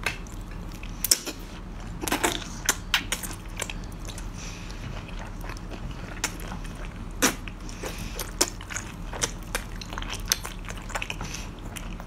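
Close-up chewing of a mouthful of cooked octopus tentacles: irregular wet smacking and clicking mouth sounds.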